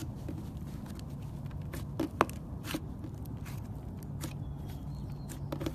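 Slime being squeezed and kneaded by hand, giving scattered wet clicks and pops from trapped air, with one sharper pop a little over two seconds in.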